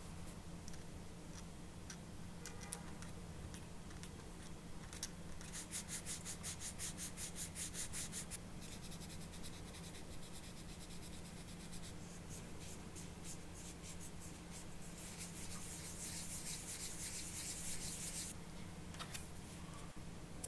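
Sanding a small plastic model-kit part by hand with a sanding sponge, a dry scratchy rubbing. It comes as a run of quick, even back-and-forth strokes, then a longer, louder stretch of steady sanding about three quarters of the way through. A faint steady hum sits underneath.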